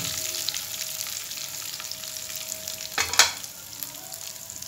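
Tadka of cumin, garlic, ginger and green chilli sizzling and crackling in hot oil in a wok while a steel ladle stirs it, with one louder burst about three seconds in.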